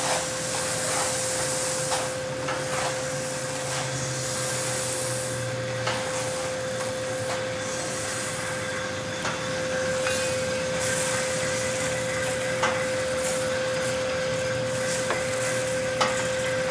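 Commercial drum coffee roaster running late in the roast: beans tumbling and hissing in the rotating drum over a steady machine hum, with a few light clicks and knocks.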